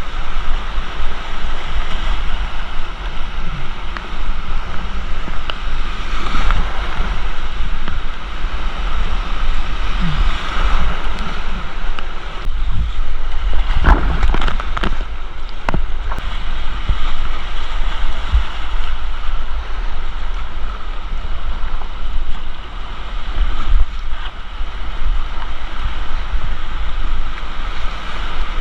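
Rushing whitewater of a rocky creek heard from a kayak, with wind rumbling on the microphone. A few sharp knocks come about fourteen to sixteen seconds in.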